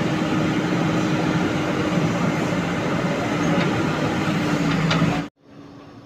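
JCB 3DX backhoe loader's diesel engine running steadily under load as the backhoe digs, with a constant low hum. A little over five seconds in the sound drops sharply to a much quieter, more distant hum of the same engine.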